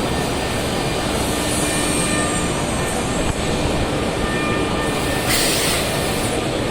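Steady din of a machine-tool exhibition hall full of running machinery, with a few faint steady whines. A short hiss about five seconds in.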